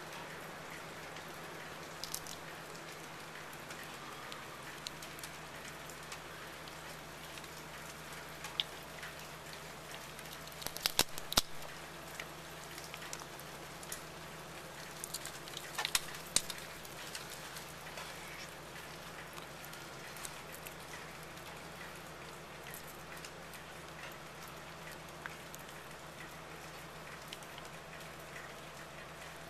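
Fox squirrel cracking and chewing peanut shells: scattered sharp crunching clicks, with two clusters of louder cracks about a third of the way in and about halfway, over a steady faint hiss.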